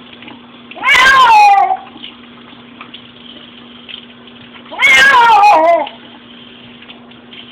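A domestic cat meowing loudly twice, each a drawn-out, bending meow about a second long, the distressed protest of a cat being bathed after being sprayed by a skunk.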